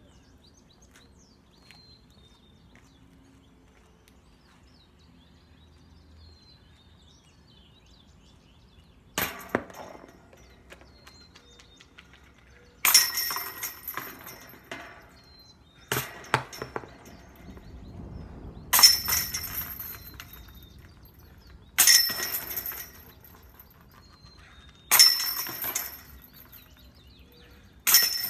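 Discs striking a metal disc golf basket seven times, about every three seconds, starting about nine seconds in. Each hit is a sharp crash followed by about a second of jangling, ringing chains.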